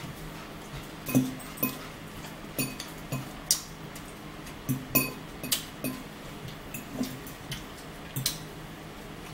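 A metal fork clinking and scraping against a salad bowl as salad is picked up to eat: about a dozen irregular, sharp little clinks and taps.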